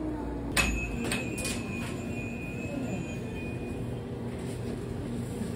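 Bakery shop ambience: a steady background hum with a sharp clink about half a second in that rings on for about three seconds, then a few lighter clicks.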